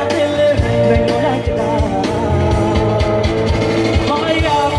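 Live rock band playing through a concert sound system: a singer over electric guitar and a steady drum beat, heard from within a large crowd.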